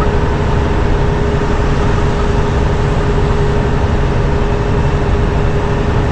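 Inside the cab of a Peterbilt 579 semi truck on the move: steady engine drone and road noise, with a constant hum running through it.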